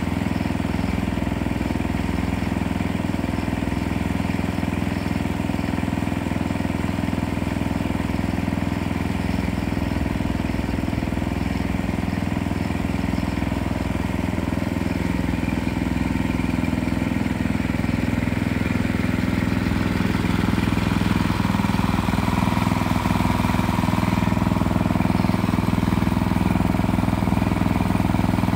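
Engine running steadily at constant speed; about twenty seconds in it grows a little louder and a steady whine joins it.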